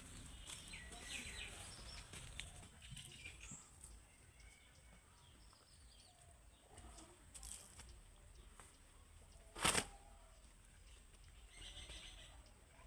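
Faint bird chirps in the open, with one sharp click about ten seconds in.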